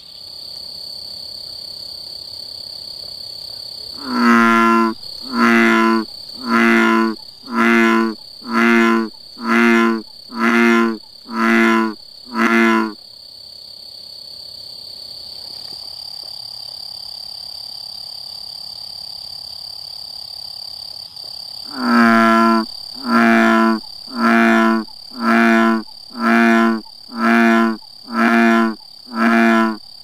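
A male American bullfrog giving its breeding-season advertisement call: two bouts of about nine deep croaks each, roughly one a second. The first bout starts about four seconds in and the second just past the twenty-second mark.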